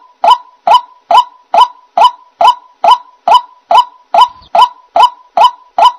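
White-breasted waterhen calling: one short, sharp 'ruak' note repeated at an even pace a little over twice a second, about fourteen times.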